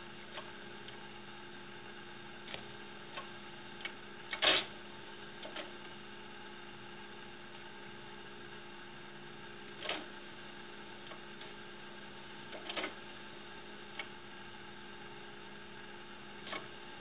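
Scattered light taps and knocks of a cat pawing at a DVD player on a wire shelf rack, the loudest about four and a half seconds in, over a steady electrical hum.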